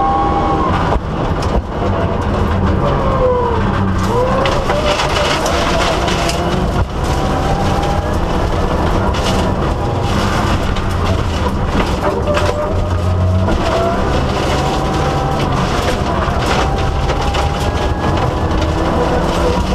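Mitsubishi Lancer Evolution VIII rally car driven hard, heard from inside the cabin: the turbocharged 2.0-litre four-cylinder's note rises and falls with the revs over constant road and drivetrain noise, with a few brief dips about a second in and near seven seconds.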